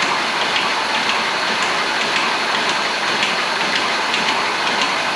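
Engine being cranked over on the starter without firing, a steady whirring with light irregular ticking. It is timing-chain rattle, which the builder puts down to air still in a new chain tensioner that has not yet been pumped up by oil pressure.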